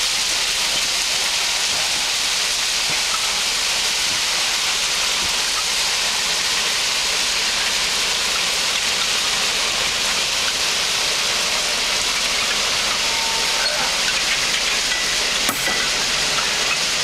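Crushed-stone railway ballast pouring steadily from the open centre doors of a moving Dogfish ballast hopper wagon onto the track: a continuous rushing hiss of falling stones. One brief click about fifteen seconds in.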